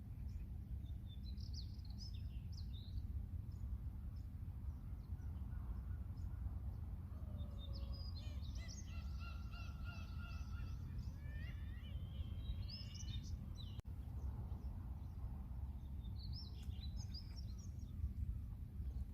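Birds chirping and calling in bursts over a steady low rumble, with a dense run of quick repeated calls and rising glides near the middle.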